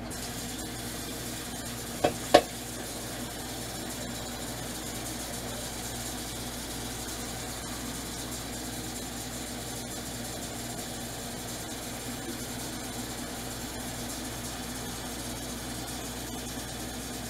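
Steady mechanical hum and hiss of kitchen background noise, with two sharp knocks close together about two seconds in.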